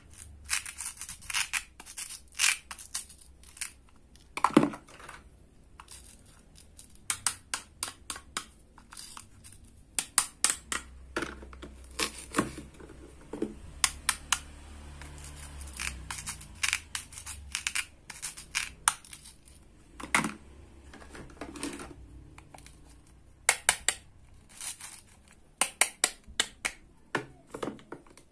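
Toy plastic fruit and vegetables being handled and pretend-cut: many irregular sharp clicks and taps of hard plastic pieces against each other and a plastic board, with short rasps as the Velcro-joined halves are pulled and cut apart.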